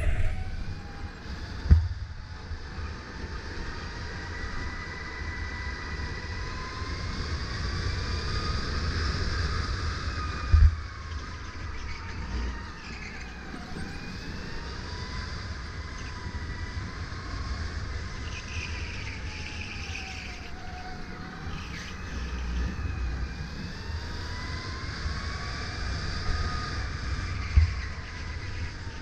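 Sodi RSX2 electric kart's motor whine, rising and falling in pitch as the kart speeds up on the straights and slows for the corners, over a steady low rumble. Three sharp thumps: about two seconds in, near the middle and near the end.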